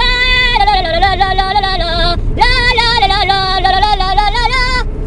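A man singing two long wordless notes with a wavering pitch, each about two seconds, with a short break between them.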